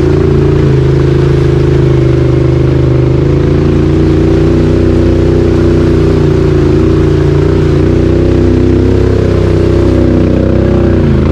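Can-Am XMR 850 four-wheeler's V-twin engine running under steady throttle through a Looney Tune slip-on exhaust, its pitch wavering slightly, then dipping briefly near the end and picking back up.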